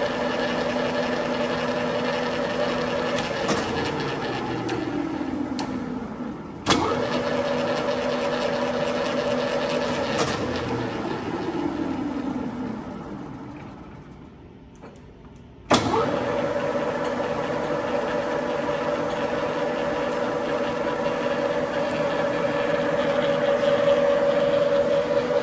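Standard Modern engine lathe running under power with a steady machine hum, interrupted by sharp clunks of its controls. Twice the hum winds down in pitch after a clunk; the second time it falls almost quiet for a couple of seconds before another clunk brings it back up to speed.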